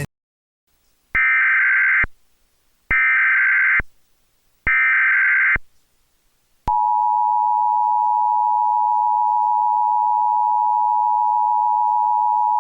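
Emergency Alert System tones from a Trilithic EAS encoder: three identical bursts of screechy digital header data, each about a second long, coding the alert. About seven seconds in, the steady attention tone starts and holds, announcing a tornado warning.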